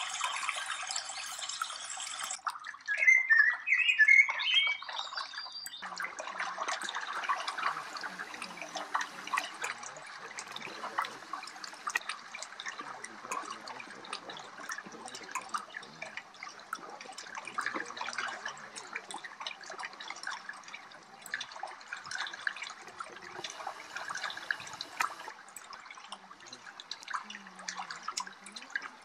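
Small water trickling and lapping over shallow stones, a steady hiss full of tiny splashes. A short burst of high chirping comes a few seconds in, and a denser rush stops abruptly about two seconds in.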